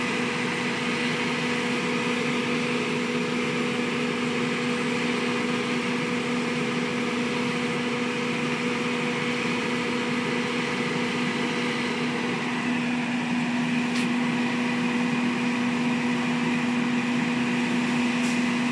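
Steady machine drone with a constant low hum, unbroken throughout, with a couple of faint ticks near the end.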